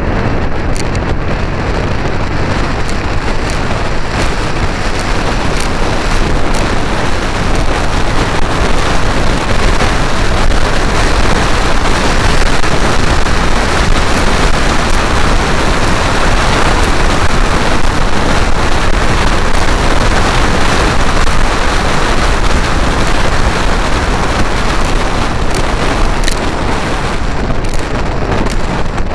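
Wind buffeting the microphone of a moving Vespa GTS scooter, with the scooter's engine running steadily underneath. The wind rush swells as the scooter picks up speed and stays loud through the middle.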